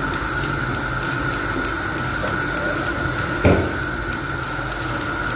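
Steady machine hum with a fast, even ticking, about four to five ticks a second, and a single thump about three and a half seconds in.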